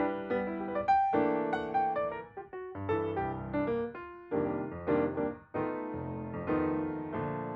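Background music: solo piano playing a gentle melody of struck notes that ring and fade.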